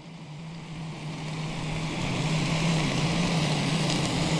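Gas camping stove burning under a pot: a steady hiss with a low hum beneath it, growing louder over the first two seconds, then even.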